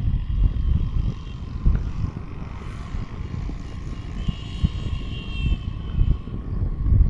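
Engine drone and road rumble heard from a moving vehicle, with gusts of wind on the microphone. A higher, steady whine of several tones rises over it for a second or so after the middle.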